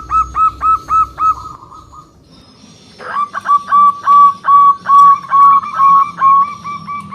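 Zebra dove (perkutut) calling: a run of short, repeated, hooked coo notes, about three a second. It pauses, then starts a longer run about three seconds in.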